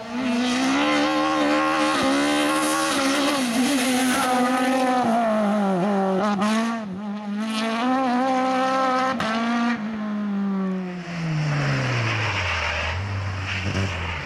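Racing car engine held at high revs, its pitch wavering up and down with two brief breaks; then the pitch falls steadily for about three seconds under a rising hiss.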